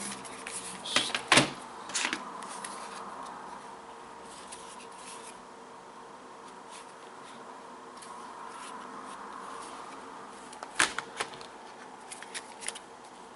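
Scattered sharp plastic clicks and knocks from handling a Lenovo ThinkPad T430s laptop as its new screen frame is seated. A few come in the first couple of seconds, then a quiet stretch, then a quick cluster of clicks near the end.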